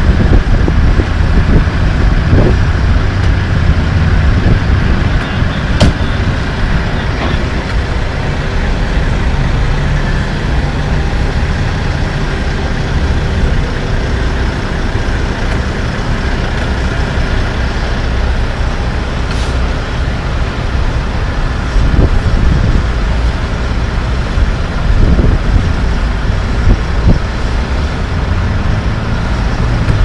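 International dump truck's diesel engine running close by: a steady low rumble that swells louder a couple of times near the end.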